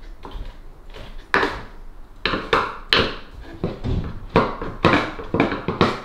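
A screwdriver knocking and scraping against the plastic pump and float housing of a Hotpoint condenser dryer, which is clogged with lint: a string of irregular sharp clicks and scrapes.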